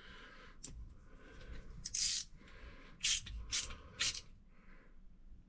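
Screwdriver bit turning the small screw back into a laundry-faucet stem to hold a new flat rubber washer: about five short scraping, clicking strokes of metal on metal, one every half second to a second.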